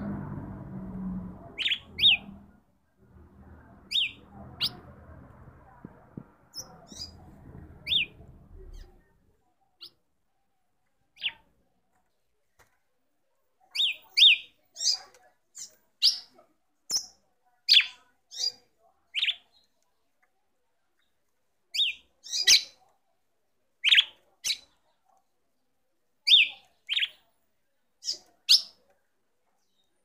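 Red-cowled cardinal (galo-de-campina) giving short, sharp call notes, often in quick pairs, irregularly and more often in the second half. A low steady rumble runs underneath for the first nine seconds or so, then stops.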